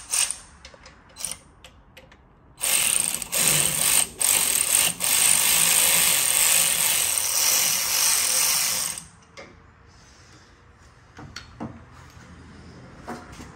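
A power tool running on bolts: a few short bursts, then a steady run of several seconds that stops about two-thirds of the way through, followed by a few light clicks and taps.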